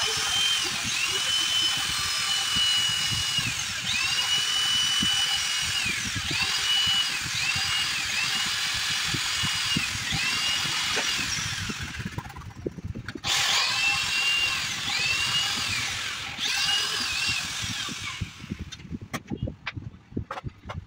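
Corded electric drill boring a hole through a wooden panel, its motor whine rising and falling as the trigger is squeezed and released in short runs of one to three seconds, with a brief pause about two thirds through. The drill stops a few seconds before the end, leaving a few light knocks and handling sounds.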